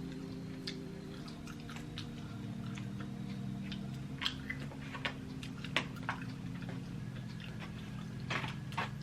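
A person chewing food close to the microphone: irregular wet smacking clicks, several of them sharper about halfway through and again near the end, over a steady low hum.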